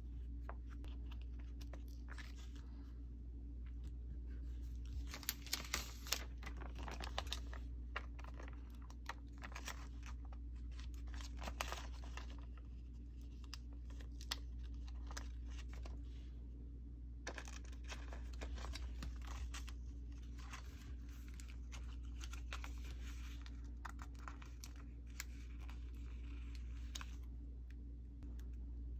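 Stickers peeled off their backing sheets with metal tweezers and pressed into a paper journal: crinkly peeling and rustling in bursts, with a few light taps, over a low steady hum.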